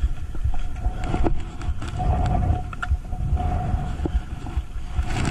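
Wind buffeting the microphone in an uneven rumble, over a steady distant drone that swells and fades, with a few light clicks.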